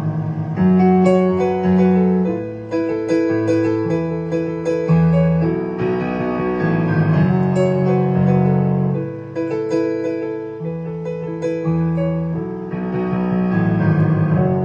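Solo piano playing: held chords over low bass notes, with a line of struck notes on top that changes every second or so.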